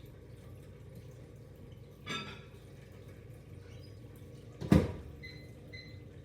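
A short rustle, then a sharp thud, then two short electronic microwave beeps near the end, a third following just after.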